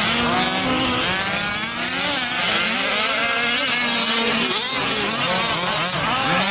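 Several 1/5-scale gas RC trucks' small two-stroke engines running together on track, their overlapping pitches rising and falling as they rev up and back off.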